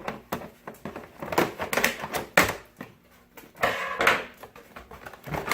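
Cardboard and plastic toy packaging being cut and pulled apart: irregular rustling and crinkling with sharp clicks and snips, in two louder bursts partway through.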